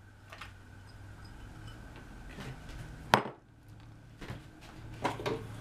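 Quiet kitchen handling sounds as onion slices are laid on a raw chicken in a foil-lined baking dish: a few faint ticks and one sharp knock about three seconds in, over a low steady hum.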